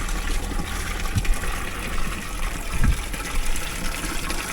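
Water gushing and gurgling as the 20 mm siphon of a small aquaponics grow bed flushes, with a couple of low gulps about one and three seconds in.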